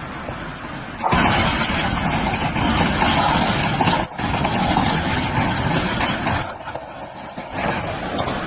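Floodwater rushing, a steady roar of noise that grows much louder about a second in and eases off for a moment near the end.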